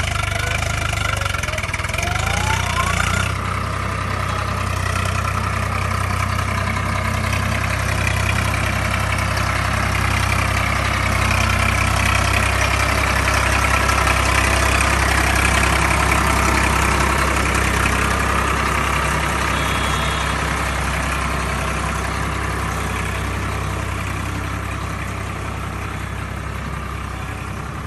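Swaraj tractor's diesel engine running steadily under the load of a heavily piled sugarcane trolley, getting louder as it comes past about halfway through and easing off toward the end.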